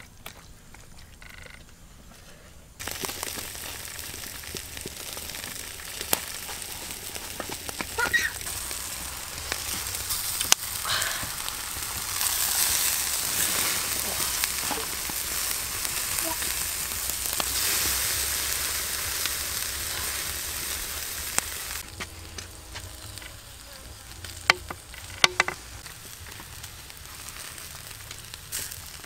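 Food sizzling as it fries in hot oil in a pan. The sizzle starts suddenly a few seconds in and falls away well before the end, with scattered clicks and knocks over it.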